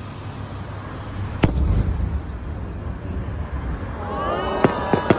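Aerial fireworks: one sharp boom about a second and a half in, followed by a low rumble, then near the end a quick run of bangs and crackling as many shells burst at once.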